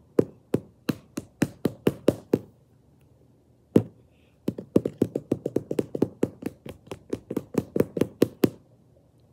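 Fists hitting a padded freestanding punching bag in fast flurries of punches, about four a second, pausing briefly around the middle with a single hit before a longer flurry that stops near the end.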